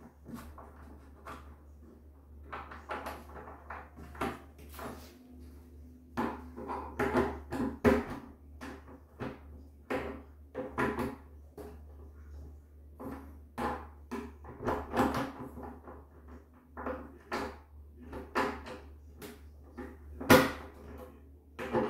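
Metal clicking, scraping and rattling of a doorknob latch being pried and worked with a screwdriver, the latch catching and not coming free. One sharp knock near the end is the loudest sound.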